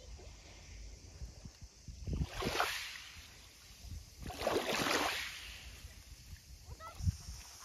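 Small waves lapping at a shallow sandy shore: two gentle washes, each swelling and fading over about a second, a couple of seconds apart, over a low steady rumble.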